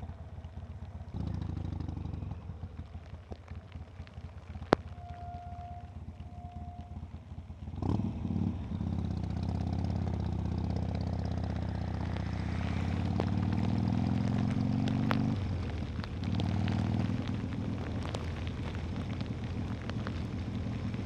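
Harley-Davidson V-twin motorcycle engine running low, then pulling away about eight seconds in and accelerating, its pitch rising through a gear and dropping at a shift, over wind and rain noise.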